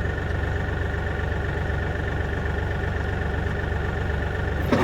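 Tractor engine idling steadily, with a short knock near the end.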